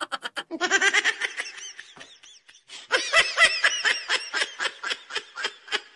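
High-pitched laughter, a fast string of giggles that breaks off briefly about two seconds in and then starts again.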